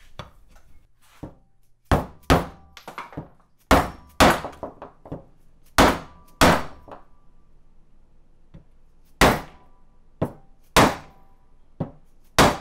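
A mallet striking a wooden block laid over a valley cover's tower, driving a new seal into it: a string of sharp knocks, many in quick pairs, with short pauses between.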